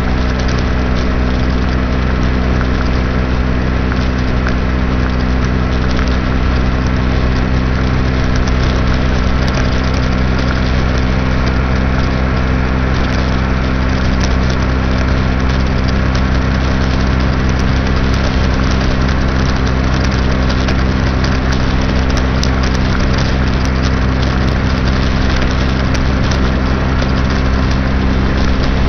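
2006 Baja SC50 moped's engine running at a steady cruising speed, holding one constant pitch, with a steady rush of wind and road noise over it.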